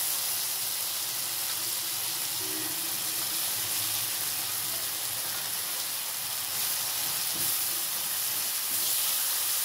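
Onion, tomato and vegetable mixture frying in oil in a non-stick wok, a steady sizzle, as dry vermicelli is added and stirred in with a silicone spatula.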